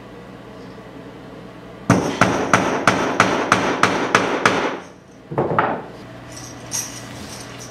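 Claw hammer striking fast, about four blows a second for a dozen or so strokes, fixing stacked bottle caps onto a wooden stick to make a lagerphone. After a short pause comes one more brief burst of noise.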